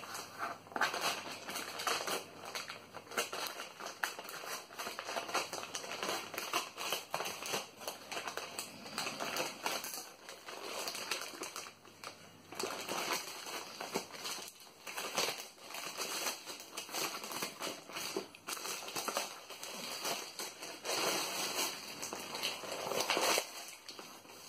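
Plastic courier mailer bag crinkling and rustling as it is cut with scissors and torn open, with small clicks and scrapes as a cardboard box inside is handled.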